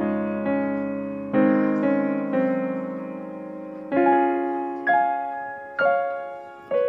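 Background piano music: slow single notes and chords, each struck and left to fade.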